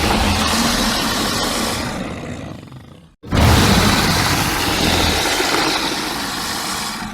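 Two long, rumbling alligator roar sound effects, custom-made rather than recorded from a live animal. Each one fades away, the first ending about three seconds in, and the second starting right after a brief gap.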